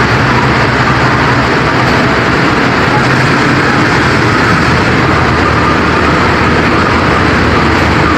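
Diesel-electric locomotive engine running loud and steady close by, a low hum under a constant rushing noise.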